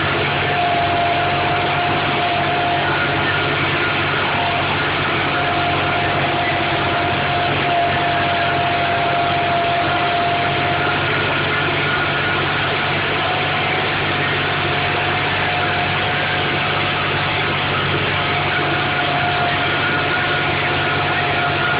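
Tractor engine running steadily under load while pulling a plough, with a steady whine over the engine drone.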